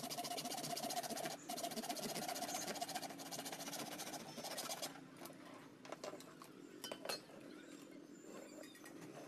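Junior hacksaw cutting through a square aluminium profile in quick back-and-forth strokes, a steady rasping that stops about five seconds in. A few light clicks and knocks follow as the cut metal pieces are handled.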